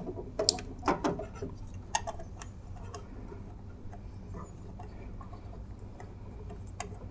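Scattered light clicks and taps, close together in the first couple of seconds and then sparse, as wiring connectors are pushed back onto a microwave oven's control module.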